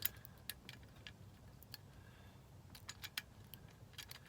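Faint, irregular small metallic clicks of a key blank being slid in and out of a Schlage pin-tumbler lock cylinder while a lock shim is pressed in beside it, as the pins are worked past.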